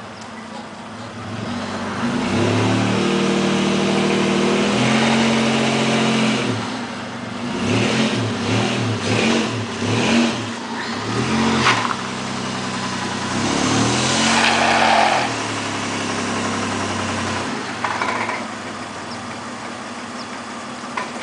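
1999 Toyota Tacoma engine idling and being revved: one held rev about two seconds in, a run of quick blips, one more rev, then back to a steady idle. It is being run up to check an engine knock after a Sea Foam treatment.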